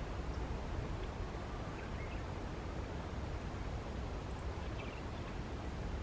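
Steady outdoor ambience dominated by low wind rumble on the microphone, with a few faint, brief bird chirps far off, about two seconds in and again near the end.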